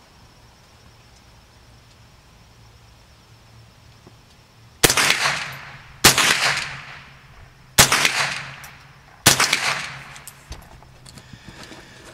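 Ruger 10/22 rifle firing .22 LR rounds: four shots, about one to one and a half seconds apart, starting about five seconds in. Each shot is followed by an echo that fades over about a second.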